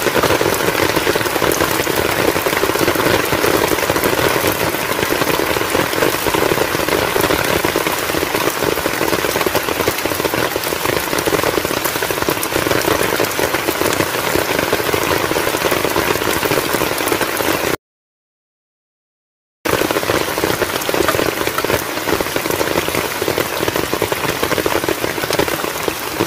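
Heavy rain pouring onto a river's surface: a steady, dense hiss. It cuts to dead silence for about two seconds near the end, then resumes.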